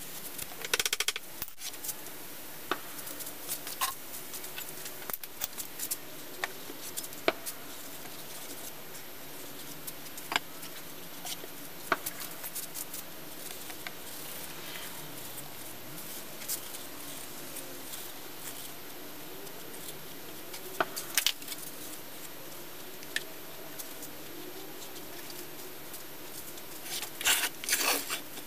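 Scattered small scrapes, taps and clicks of hand tools and fingers working the rammed green sand of a mold's cope as the sprue is punched through. Near the end a quick cluster of sharper knocks as the wooden flask is handled.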